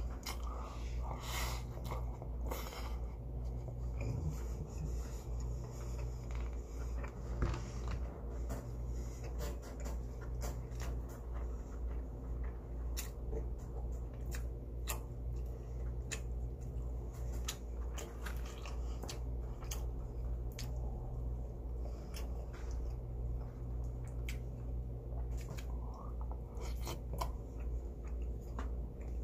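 A person eating: chewing, with many short clicks of a spoon and chopsticks against a plastic bowl, over a steady low hum.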